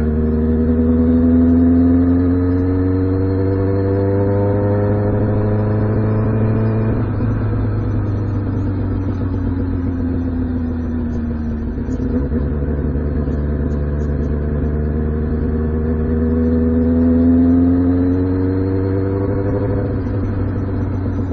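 2006 Kawasaki Ninja ZX-6R 636's inline-four engine pulling the bike along. Its pitch climbs for the first several seconds and drops at a gear change about seven seconds in. It then sinks for a few seconds, climbs again and eases off near the end.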